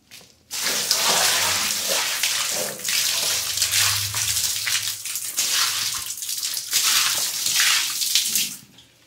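Water poured out of a plastic bucket, gushing and splashing onto a tiled floor. It starts about half a second in and stops shortly before the end.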